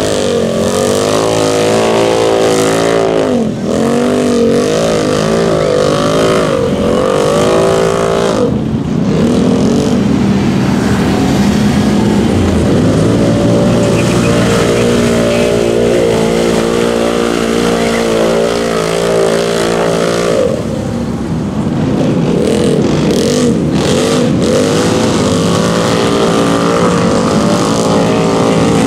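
Side-by-side UTV engines revving hard through a mud pit. The revs rise and fall repeatedly, hold steady high in the middle, then swing up and down again near the end.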